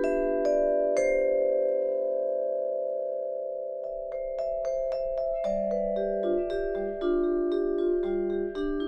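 Solo vibraphone played with four mallets: a chord is struck about a second in and left to ring, slowly fading, then the playing resumes about four seconds in with busier chords over a lower moving line.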